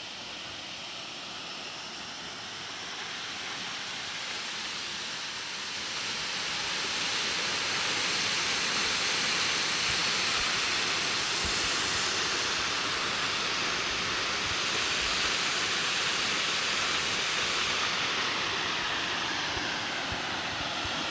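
Waterfall: the steady rushing noise of falling water, growing louder over the first several seconds and then holding even.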